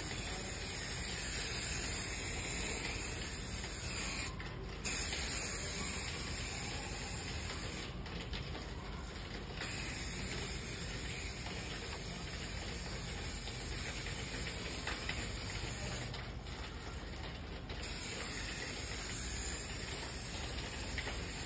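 Bob Cat rodent repellent aerosol can spraying into a car's engine bay: a steady hiss of spray that stops briefly three times, about 4, 8 and 16 seconds in.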